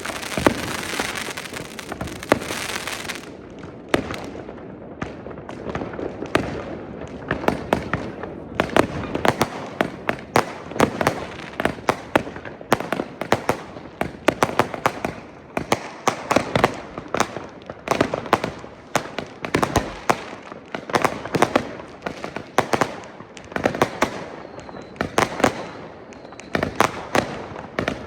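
Many F2 consumer fireworks and firecrackers going off in the street: sharp bangs and pops at an irregular, rapid pace. A dense crackle fills the first three seconds.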